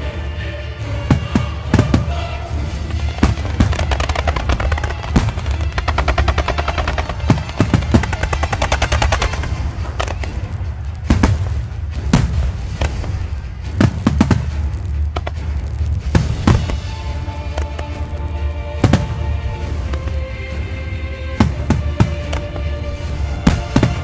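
Fireworks exploding over loud music. A rapid string of reports crackles through the first half, then single booms come every second or two.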